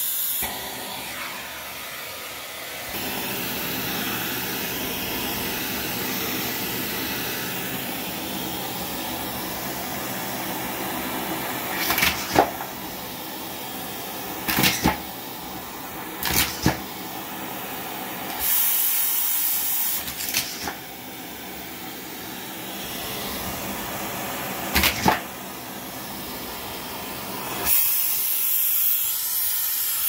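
Canister vacuum cleaner running, its bare wand tube sucking up small plastic toys from carpet, each one going up the tube with a short sharp clatter, about five times. Twice the suction hiss turns louder and brighter for a second or two.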